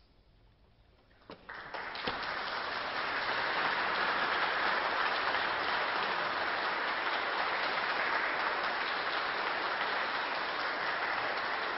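A moment of quiet, then an audience begins applauding just over a second in: a few first claps, swelling within a second into steady applause.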